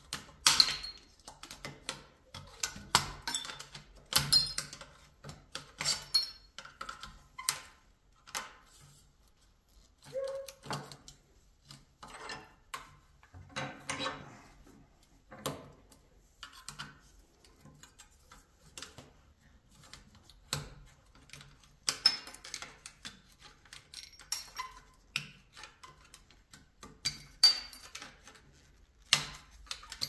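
Screwdriver prying and tapping copper tube stubs out of the perforated steel end plate of an air-conditioner coil held in a bench vise: irregular metallic clinks, scrapes and short ringing taps as the copper is stripped from the coil for scrap.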